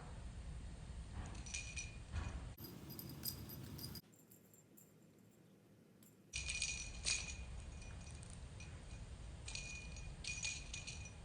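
A small bell in a cat toy jingles in short bursts as the cat bats it about: three spells of ringing, about two seconds in, near the middle and near the end.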